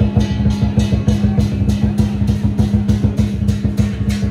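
Lion dance drumming: a large drum beaten fast with cymbals clashing about four times a second, keeping up a steady, loud rhythm.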